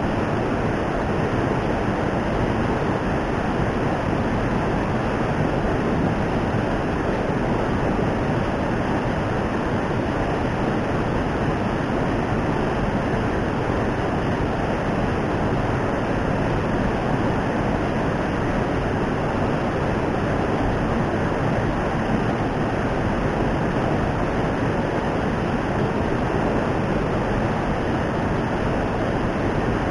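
Steady rush of fast-flowing water in a ditch channel.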